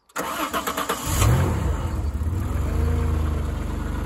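Car engine being started: the starter cranks with a fast run of clicks, the engine catches about a second in, revs briefly and settles to a steady idle.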